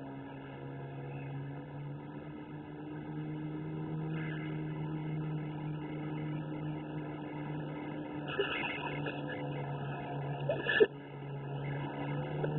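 Jon boat's outboard motor running steadily at speed with the bow up, its drone holding an even pitch. A single sharp knock sounds near the end.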